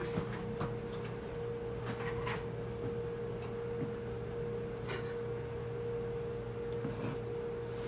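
A steady electrical hum with a constant mid-pitched tone, and a few soft rustles and taps as a puppy is picked up and held.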